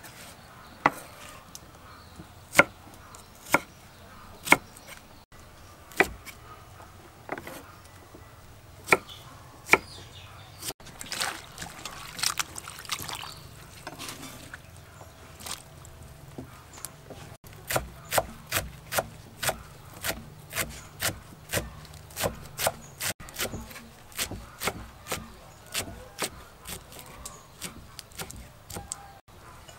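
Kitchen knife chopping vegetables on a wooden chopping board. Separate cuts come about once a second at first, then a steady run of chops about two a second in the second half.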